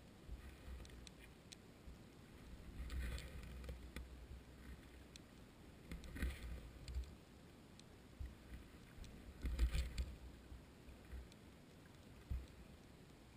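Underwater ambience at the sea bottom, heard through a GoPro's waterproof housing: a faint low murmur with scattered light clicks, broken three times by a short, dull rumbling burst a few seconds apart.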